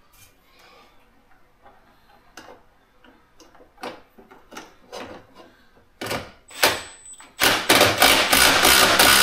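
Cordless power driver driving screws, with light clicks of handling parts at first. Two short spurts come about six seconds in, then a loud continuous run of about two and a half seconds near the end.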